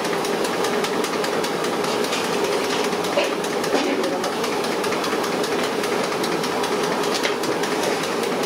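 A hand tossing and mixing chopped onions, green chillies and curry leaves in an aluminium pot: soft crunching and rustling with small ticks, over a steady roaring hiss.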